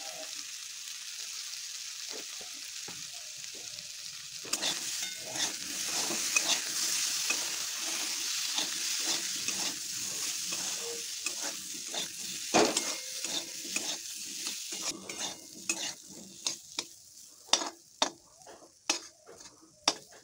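Diced potatoes sizzling in hot oil in a metal kadai, stirred with a metal spatula that scrapes and knocks against the pan from about four seconds in. Near the end the sizzle dies down and the spatula's separate sharp taps and scrapes stand out.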